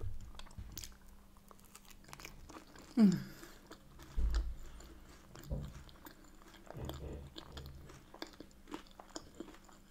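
Close-up wet chewing of a mouthful of mashed potato, gravy and Yorkshire pudding: soft smacking and squelching clicks with low thuds of the jaw. There is a short, falling vocal hum about three seconds in.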